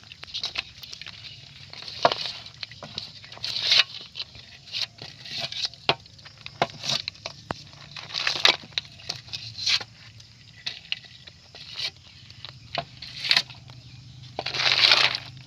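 Snail shells clicking and rattling against each other and the metal basin as a hand rummages through a heap of live freshwater snails, in irregular bursts with a louder one near the end.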